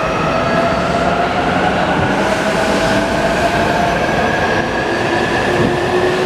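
E259-series Narita Express electric train pulling out and gathering speed, its traction motors giving a whine that slowly rises in pitch over steady wheel-and-rail rumble.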